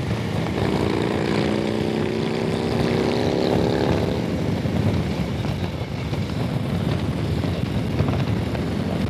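Harley-Davidson Street Glide V-twin engine running steadily while riding, heard under a constant rush of wind and road noise. The engine's tone stands out for the first four seconds or so, then sinks into the wind.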